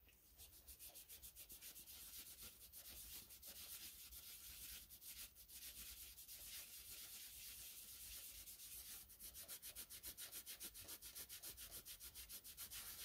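Green nylon abrasive scouring pad scrubbing back and forth over the rusty slideways of a lathe bed coated in rust-dissolver gel: a faint, rapid, even run of rubbing strokes, several a second, growing denser about nine seconds in.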